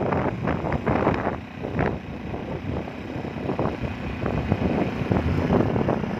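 A vehicle driving slowly, with wind buffeting the microphone in an irregular rumble.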